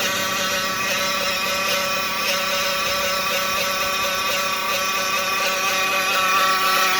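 2015 Dodge Caravan engine running with a steady whine. The whine comes with the engine light on and a van that will not drive forward.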